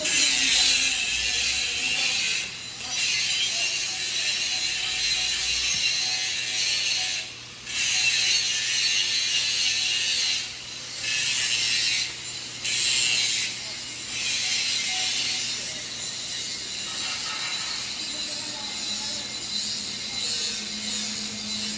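Electric arc welding crackling and hissing steadily, breaking off briefly about four times and starting again.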